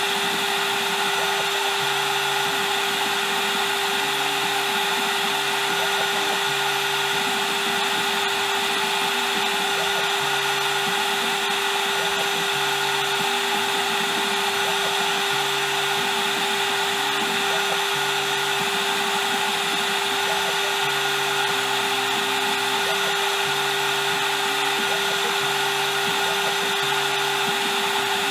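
Spindle of a small CNC engraving machine running with a steady whine while a V-shaped engraving bit cuts lettering into stainless steel. Underneath, lower tones change pitch every second or so as the machine moves.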